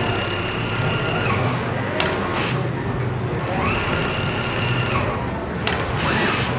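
Jack automatic pattern sewing machine with a 1200×800 mm bed stitching, running steadily over a low hum. A whining tone falls away about a second in and returns for about two seconds in the middle, and two short hisses come about 2 s and 6 s in.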